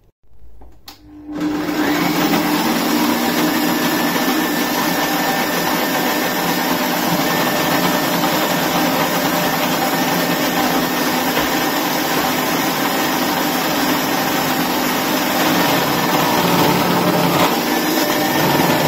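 Kenwood Prospero food processor motor running with the grating disc, shredding beetroot fed down the feed tube. A click about a second in, then the motor starts and runs steadily with a low hum.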